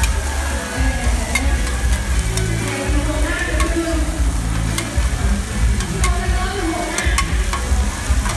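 Mussel pancake batter frying and sizzling in oil on a large flat pan, with a metal spatula scraping and clacking against the pan over and over, over a low rumble.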